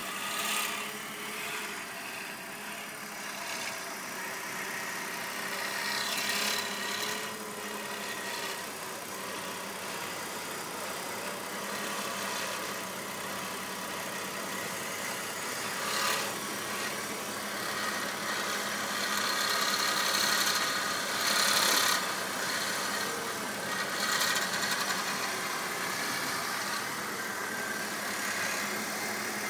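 A BMW E60 530i's straight-six engine idles steadily while the steering is turned. A noise from the steering comes about six to seven seconds in, again around sixteen seconds, and in a longer, louder stretch from about nineteen to twenty-three seconds. It is the fault the owner is showing.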